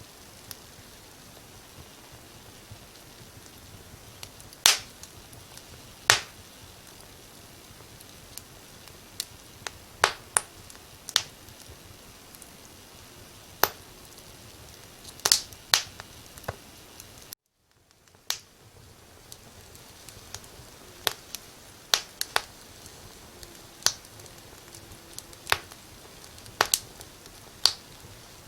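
Firewood burning in a fireplace, crackling with irregular sharp pops, a few a second at most, over a soft steady hiss. About two-thirds through the sound cuts out for a moment and fades back in.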